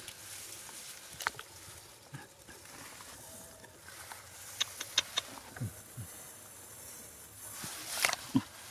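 A few soft wet clicks and pops from a muddy, water-filled hole, three of them close together about five seconds in. Near the end comes a short splash as a hand plunges into the water and grabs a snakehead fish.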